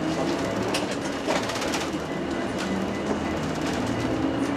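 Inside a moving bus: the engine runs steadily under road noise, with scattered clicks and rattles from the cabin fittings.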